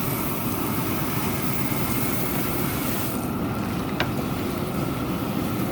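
Propane seafood-boiler burner running with a steady low roar under the boil pot, with a single small click about four seconds in.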